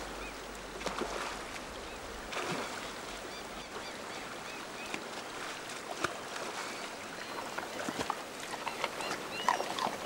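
Shallow river water running over stones around a brown bear's legs as it wades, with a few short, sharp splashes.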